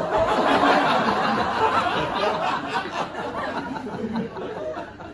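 Audience laughing together, loud at first and dying away over the next few seconds.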